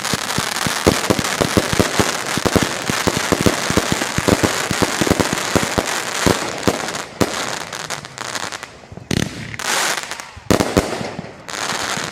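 Glorious 'Mardi Gras Fiesta' 500-gram fireworks cake firing a fast, dense barrage of shots and bursts. For about the first eight seconds the shots come thick and quick; after that they thin out to a few separate bangs near the end.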